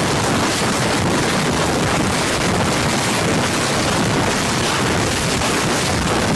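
A loud, steady rushing noise with no pitch, even from low to high.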